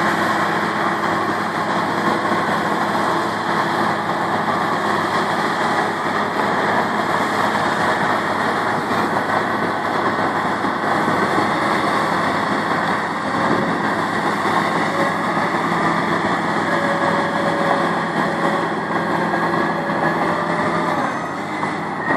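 Caterpillar D6M bulldozer's diesel engine running steadily.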